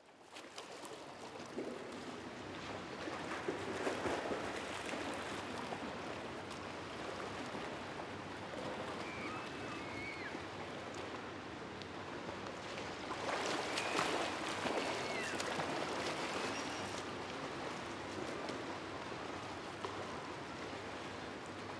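Steady rushing outdoor noise, swelling twice, with a few faint high chirps in the middle.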